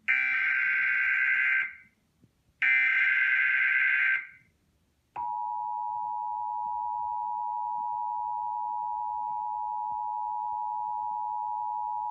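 Emergency Alert System broadcast: two bursts of the SAME digital header data tones, each about a second and a half long, then after a short gap the steady two-tone EAS attention signal (853 and 960 Hz) begins about five seconds in and holds. Together they announce a National Weather Service flash flood warning.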